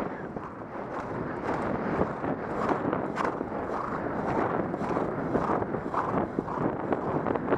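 A horse galloping on grass: a steady rhythm of hoofbeats under wind buffeting the helmet-mounted microphone.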